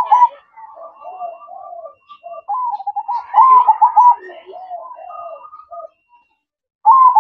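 Zebra dove (perkutut) cooing: loud runs of quick, rhythmic notes at the start, in the middle and again at the very end, with softer cooing between and a short pause just before the last run.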